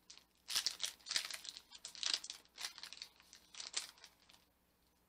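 Foil wrapper of a Pokémon trading card booster pack crinkling and tearing as it is ripped open, in several short bursts that stop about four and a half seconds in.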